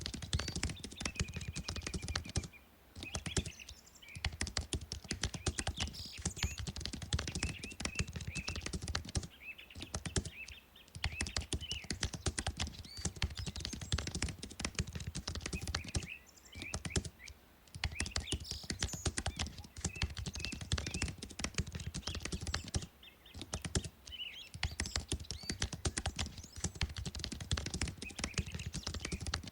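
Computer keyboard typing in fast, dense runs of keystrokes, broken by pauses of a second or so every several seconds.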